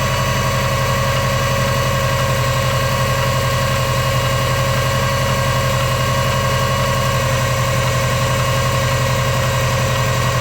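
Car engine idling steadily, with a steady high-pitched whine over the idle: the weird noise being recorded.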